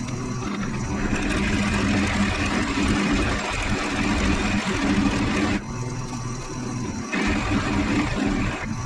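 Bauer 17-inch variable-speed drill press running with a 5/8-inch bit cutting a hole over a pilot hole. The cutting noise eases a little past five seconds in and picks up again about seven seconds in, over the steady hum of the motor.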